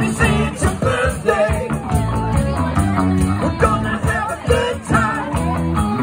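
Live band playing rock music outdoors: guitar over a steady beat, with a voice singing.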